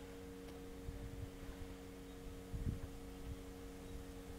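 Steady low electrical hum of a few held tones, with faint handling bumps and one soft knock about two and a half seconds in.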